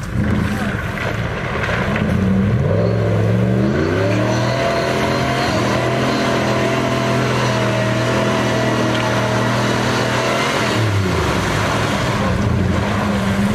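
An off-road 4x4's engine revving up a few seconds in, held at high revs for several seconds, then dropping back to lower revs near the end.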